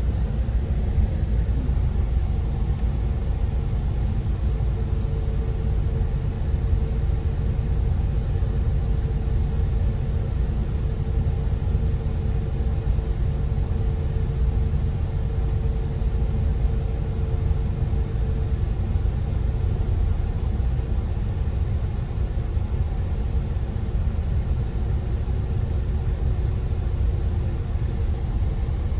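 A public bus's engine idling while the bus stands still, giving a steady low rumble heard from inside the bus. A faint steady hum sits over it through the middle of the stretch.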